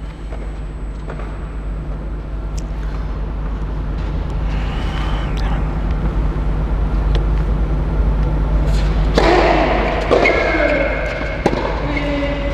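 Tennis ball being bounced and struck with rackets on an indoor clay court: scattered sharp knocks, coming more often in the second half as a rally gets going. Under them runs a steady low hum, and voices come in from about nine seconds in.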